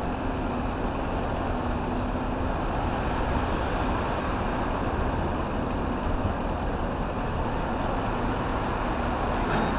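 Steady city street noise of vehicles and traffic, with a faint steady engine hum underneath.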